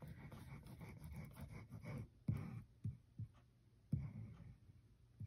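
Nozzle of a squeezed bottle of tacky glue scratching along a strip of cardstock as a line of glue is laid down, a faint rapid rasping for about two seconds, followed by a few soft knocks.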